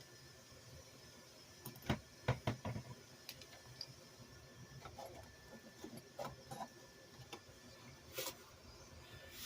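Scattered light clicks and knocks of small parts and tools being handled during a repair, a quick cluster about two seconds in and a louder knock near the end.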